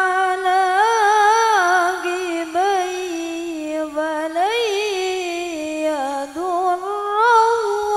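One voice chanting Quran recitation (tilawah) in Arabic. It holds long notes that waver and turn in ornamented melismatic runs, climbing to higher phrases about halfway through and again near the end.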